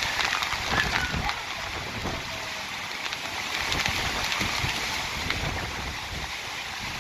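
Hurricane wind and heavy rain: a steady hiss, with gusts buffeting the microphone.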